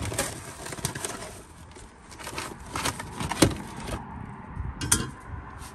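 Cardboard food box rustling and crinkling as frozen breaded chicken pieces are pulled out by hand and put into an air fryer basket, with a couple of sharper knocks.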